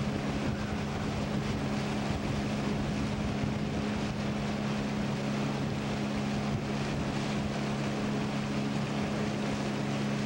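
Outboard motor of a small boat running at a steady speed, a constant drone with no change in pitch.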